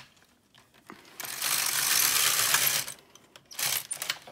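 Silver Reed LK150 knitting machine carriage pushed across the needle bed, knitting a row of tuck-stitch pattern: a mechanical rasp lasting about a second and a half. A shorter burst from the carriage follows near the end.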